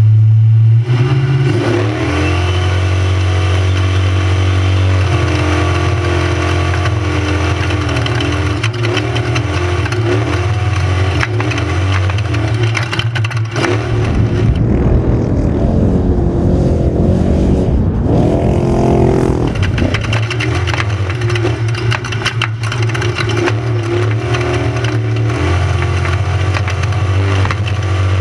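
Class 6100 spec trophy truck's V8 engine running hard and revving, holding steady stretches that shift in steps, with a rough rumble and rising and falling revs about halfway through.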